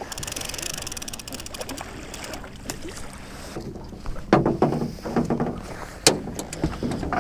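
Fishing reel being cranked in, a fast run of fine ticks, then rough handling noise and a sharp knock about six seconds in as a small blue catfish is brought aboard.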